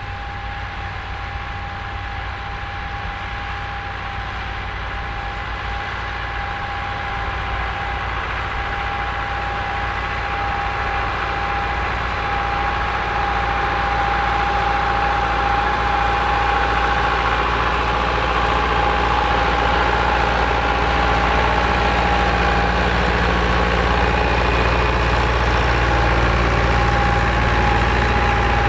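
Massey Ferguson tractor engine running steadily while ploughing, growing gradually louder as it comes closer, with a steady high-pitched whine over the low engine note.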